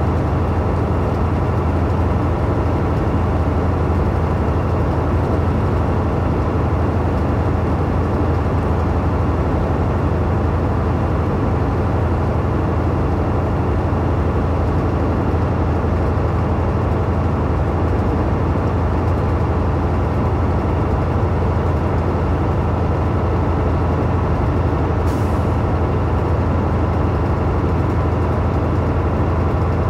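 Semi truck cruising at highway speed, heard inside the cab: a steady low diesel engine drone with tyre and road noise, and a brief faint hiss about 25 seconds in.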